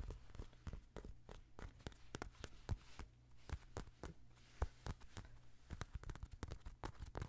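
Long fingernails tapping and scratching on the iced surface of a heart-shaped donut held right against the microphone, a quick irregular run of small clicks.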